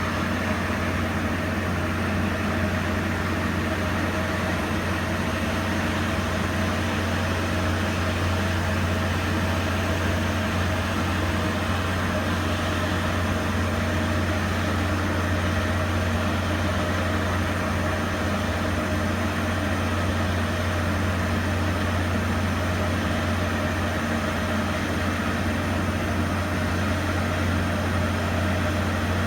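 A steady low engine hum that runs without change, with no revving or pauses.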